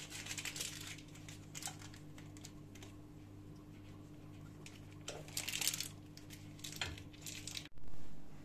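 A whisk stirring thick pudding in a stainless steel saucepan: quick scraping strokes at first, then scattered clicks of the whisk against the pan. There is a short louder bump just before the end.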